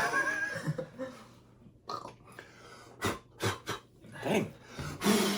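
A person belching in the first second, followed by a few short knocks and breathy sounds.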